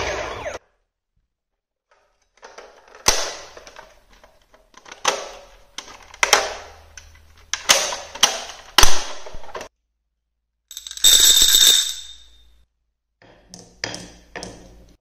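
A plastic toy ambulance being handled, its parts and doors clicking and knocking in a series of sharp clicks. This is followed by a steady electronic ringing tone lasting about two seconds. Near the end comes a few quick clicks of glass marbles on a wooden marble-run track.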